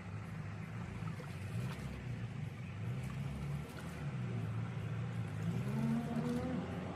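An engine running steadily, its pitch wavering and rising briefly near the end.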